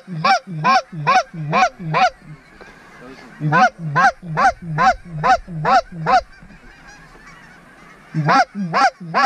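Goose call blown by a hunter: runs of quick, evenly spaced honks, about two and a half a second, each note breaking from a low tone to a high one. The calling pauses briefly about two seconds in, stops for about two seconds past the six-second mark, then starts again near the end.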